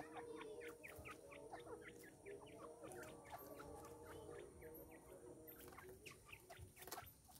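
Grey francolins calling softly: a faint, rapid run of short chirps, several a second.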